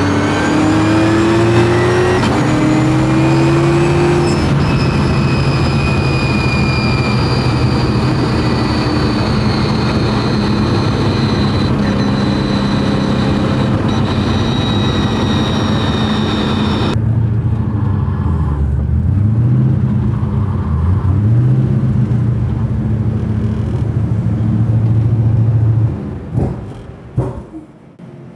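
The Vicious Mustang's Ford Coyote V8, fitted with twin turbochargers and a supercharger, running at a steady pace with a high whine over the exhaust note that falls slowly in pitch and drops away about two-thirds through. The engine note then dips and climbs once. The sound falls away sharply near the end, followed by a few sharp clicks.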